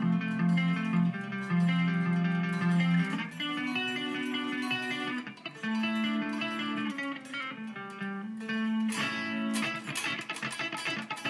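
Gibson Flying V B-2 electric guitar played on its bridge pickup through a clean amp setting: a slow line of held single notes, then faster picked chords from about nine seconds in. The tone is a little harsh.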